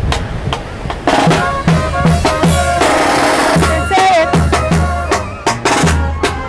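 Live band music with a drum kit and a steady bass beat under held melody notes, coming in loud about a second in.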